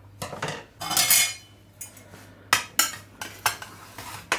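Metal spatula scraping across a white enamel baking tray as it is worked under a slice of pizza, twice in the first second and a half, then several sharp clicks and taps of metal utensils on the tray.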